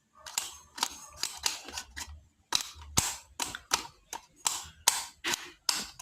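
A person coughing over and over: short, sharp coughs in quick succession, about two or three a second, each with a brief raspy tail.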